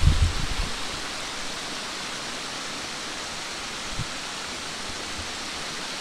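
Small mountain stream rushing steadily over rocks, with a few low bumps near the start and one about four seconds in.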